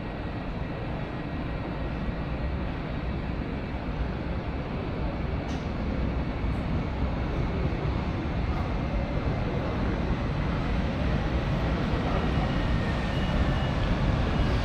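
Train rumbling, with a steady rushing noise that grows slowly louder as it approaches, and a faint high whine near the end.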